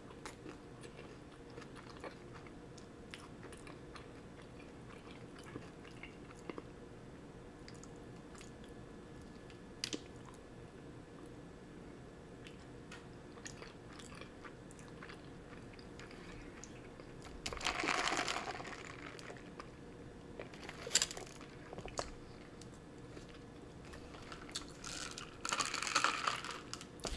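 Close-up chewing and biting of a toasted cinnamon crunch bagel with cream cheese, with small wet mouth clicks and crunches. Louder stretches of crunching or rustling come about eighteen seconds in and again near the end.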